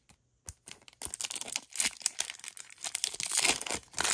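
Foil wrapper of a Pokémon Trick or Trade booster pack crinkling and tearing open. A few light clicks, then a dense crackle from about a second in.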